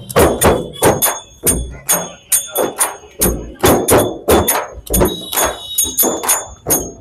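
Several large chang frame drums beaten by hand in a fast, steady rhythm of about three strokes a second, each stroke with a deep thud.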